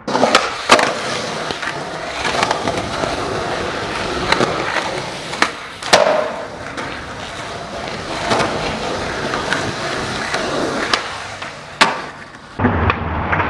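Skateboard wheels rolling on concrete, broken by several sharp clacks of the board hitting the ground during tricks. The sound changes abruptly about a second before the end.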